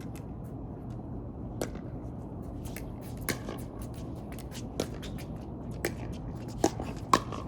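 Pickleball rally: paddles hitting the plastic ball, about six sharp pops a second or so apart, the loudest two near the end.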